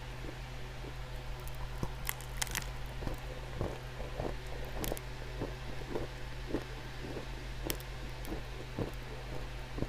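Clay being crunched: a run of small, irregular crunches about twice a second, with a few sharper cracks among them, over a steady low hum.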